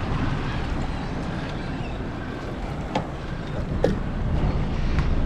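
Steady wind buffeting the microphone over choppy water around a small boat, with three short sharp clicks about three, four and five seconds in.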